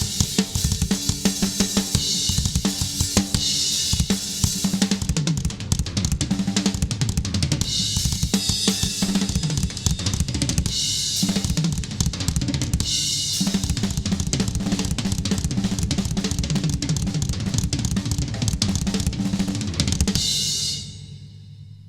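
Full drum kit played in a busy groove, with bass drum, snare, hi-hat and crash cymbals, close-miked with budget drum mics and mixed with EQ, a little reverb and compression. About 20 seconds in the playing stops and the kit rings out and fades.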